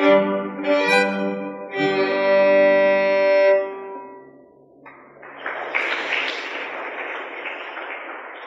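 Solo violin playing the last few short notes of a piece, then one long held final note that dies away. About a second later a room of people starts clapping, and the applause fades out near the end.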